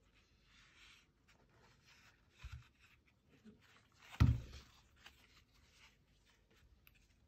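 Hands handling Oakley Fall Line M snow goggles: soft scratchy rustling of the elastic strap, frame and pouch. There is a short dull knock about two and a half seconds in and a louder one about four seconds in.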